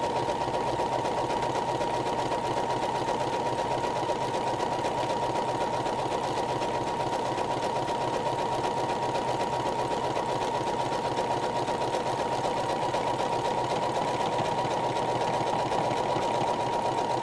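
Domestic electric sewing machine running steadily as it sews a close satin stitch around an appliqué circle, the feed dogs carrying the fabric along. An even whirring with a steady high tone in it.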